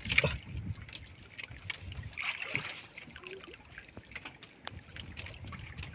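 Water lapping against an outrigger boat's hull, with a few short light clicks and knocks.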